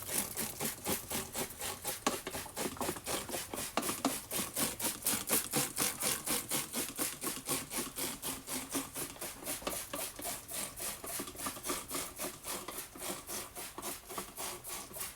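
Rapid back-and-forth rubbing by hand, about four or five even strokes a second, kept up steadily.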